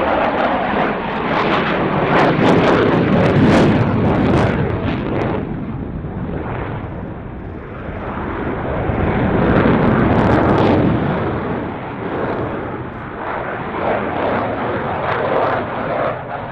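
A Dassault Rafale's twin Snecma M88 jet engines running at display power overhead, a loud jet noise that swells and fades twice, crackling as it peaks.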